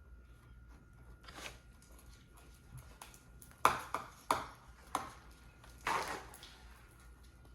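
Slime being mixed by hand in a bowl after activator is added: four sharp smacks or taps, the last one a longer squish.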